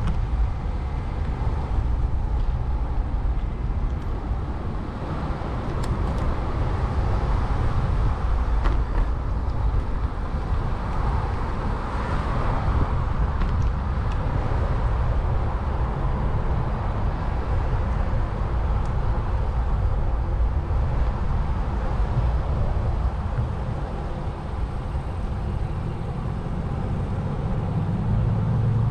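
Steady rumbling road noise of a bicycle ridden on asphalt, with car traffic alongside; a brief swell about twelve seconds in.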